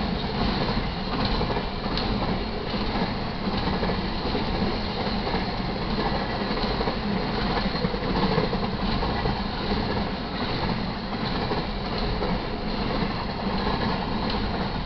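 Double-stack intermodal freight cars rolling past steadily, a continuous rumble of steel wheels on rail with irregular clicks as the wheels cross the rail joints.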